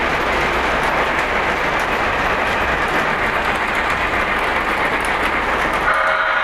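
O-gauge model passenger train running on plastic three-rail track, a steady rolling rumble and hiss from the wheels and motors. Near the end a brief pitched tone comes in over it.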